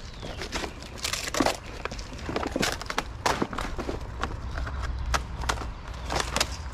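Plastic sheeting crinkling and rustling in irregular bursts as it is pulled and folded over dirt and gravel.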